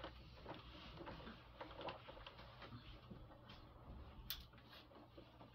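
Faint rustling and scattered small clicks and knocks as people settle into their seats and handle things at a lectern, with one sharper click about four seconds in.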